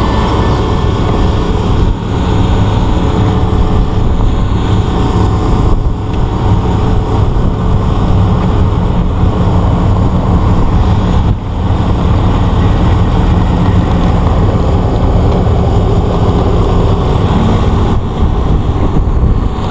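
A small sailboat's engine running steadily under way, with a low, even hum and the rush of water along the hull.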